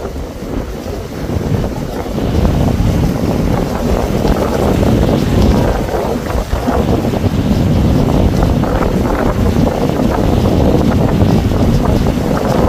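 Strong wind buffeting the microphone: a loud, rough rumble that grows louder about two seconds in and holds.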